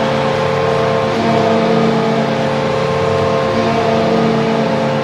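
Ice hockey arena goal horn sounding one long, steady blast to celebrate a score.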